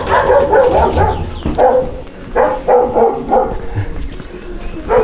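Dog barking repeatedly: a quick run of barks, then several separate barks, and one more near the end.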